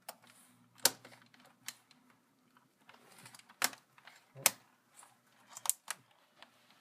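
Irregular sharp plastic clicks and taps, about seven spread over several seconds, from handling an HP G6 laptop's keyboard while fitting its ribbon cable into the connector.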